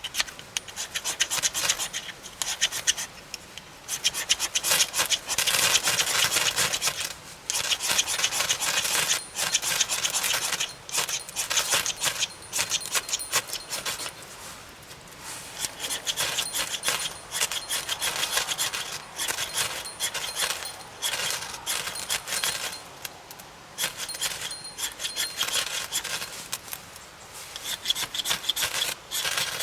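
Wood being cut with a hand saw: runs of quick rasping strokes that stop briefly between runs, a few seconds each.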